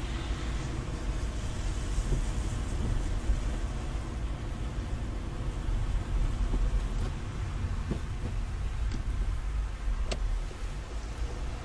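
Car interior while driving on a wet road: steady low rumble from the engine and road, with the hiss of tyres on wet tarmac, strongest in the first few seconds. A few faint clicks in the second half.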